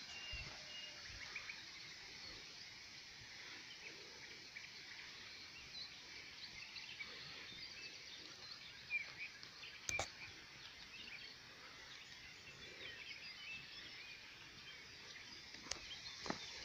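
Outdoor ambience of many small birds chirping and singing in woodland, faint and scattered throughout. One sharp click about ten seconds in, and a few soft thumps near the end.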